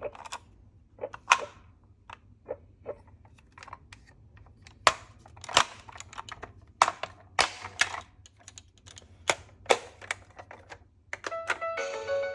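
Toy miniature cars clicking and clacking, hard little plastic-and-metal knocks at irregular intervals as they are handled and bump against each other and the track. Background music comes in near the end.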